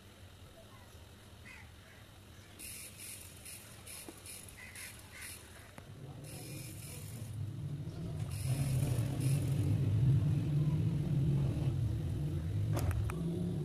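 Pencil scratching on paper in short strokes, under a low rumble that builds from about halfway through and is loudest near the end.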